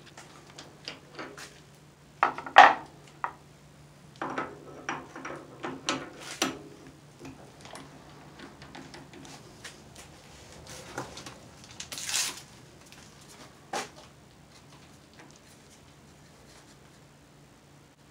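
Metal clinks, knocks and rattles of a lathe cutter's tool holder being handled and fitted onto a quick-change tool post, in irregular clusters with a short rasp about twelve seconds in, over a faint steady hum.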